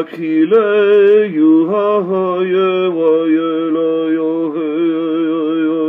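A man singing a Lakota prayer song (olowan) unaccompanied, his pitch wavering. From about three seconds in he holds one long note.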